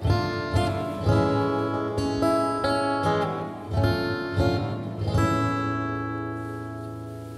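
Acoustic guitar playing the closing chords of a song, strummed and picked, then a final chord struck about five seconds in and left to ring and fade away.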